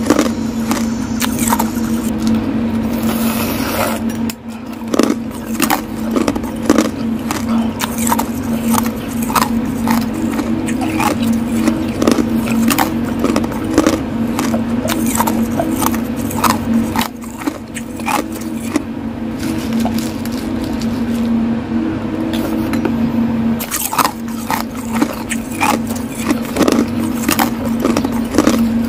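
Ice cubes crunching and clinking close to the microphone, many sharp irregular cracks, as ice is chewed and moved about on a plate with a spoon. A steady low hum runs underneath.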